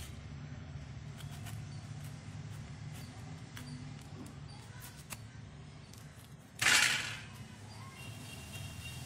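A small knife scoring the tough husk of a cocoa pod lengthwise: scattered faint clicks and crackles, with one louder scraping rush lasting about half a second, roughly two-thirds of the way in.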